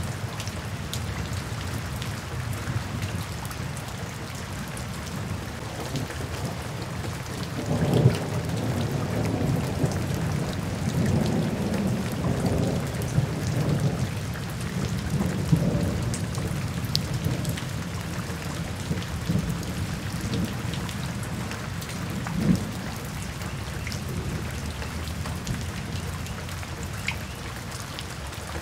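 Steady rain falling on forest foliage, with a low rolling rumble of thunder that starts abruptly about a quarter of the way in and dies away over about eight seconds, and a brief low thud later.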